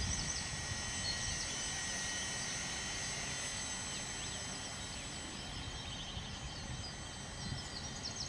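Wind buffeting the microphone in a low, steady rumble, with a faint steady high whine from a radio-controlled model helicopter flying overhead.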